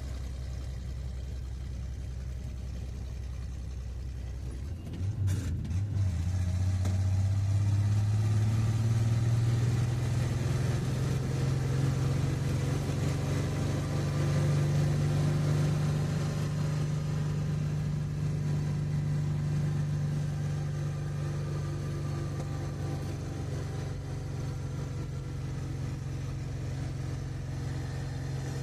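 Car engine under load climbing a steep hill, heard from inside the cabin. It runs low and steady at first, then about five seconds in there is a click and the revs rise as the engine pulls harder, easing off a little in the second half.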